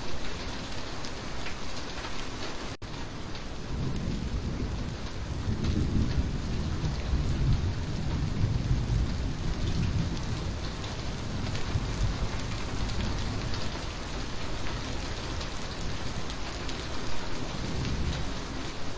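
Steady, dense rain falling, with a low rumble of distant thunder swelling from about five seconds in and fading after about twelve.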